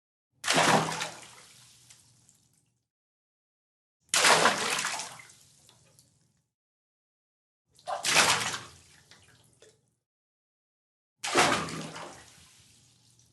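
Four medium splashes of water dumped into water, each about three and a half seconds apart, starting suddenly and trailing off in about two seconds of sloshing and dripping.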